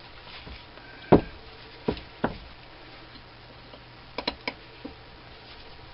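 Allen wrench knocking and clicking against the hex-socket screws of a metal lathe tool post as it is worked to break them loose: three knocks in the first couple of seconds, then a quick run of three sharp metallic ticks and one more a little past the middle.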